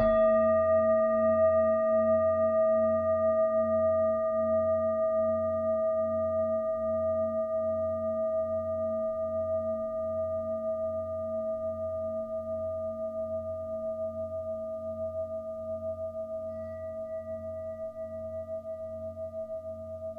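A singing bowl struck once at the start, ringing on with a slow wavering pulse and fading gradually.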